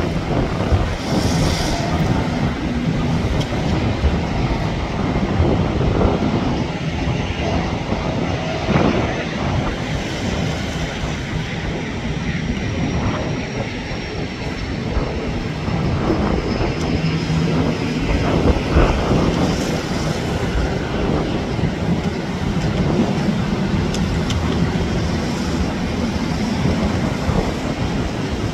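Boeing 737 jet airliner on final approach: a steady, distant jet roar, with a faint high whine that slowly falls in pitch through the middle.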